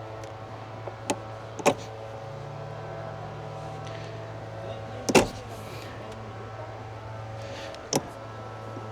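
Four sharp clicks and knocks from seat-belt wiring connectors and trim being handled, the loudest a little past halfway, over a steady low hum.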